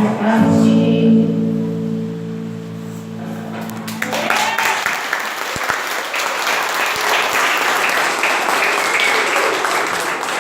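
The song's closing chord holds and fades, then about four seconds in an audience breaks into steady applause, with a few voices calling out among the clapping.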